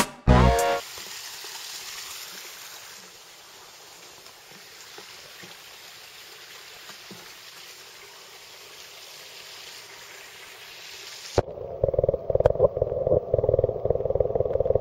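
Faint steady hiss of backyard pond water heard from above the surface. About eleven seconds in it changes suddenly to a much louder, muffled underwater rumble with crackling, the sound of the waterproof camcorder's microphone submerged among rising air bubbles.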